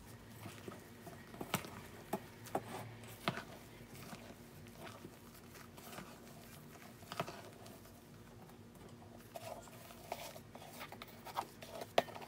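Sponge-cake batter being gently folded into whipped egg whites in a bowl: soft, quiet scraping and squishing of the utensil through the foam, with a few light clicks scattered through.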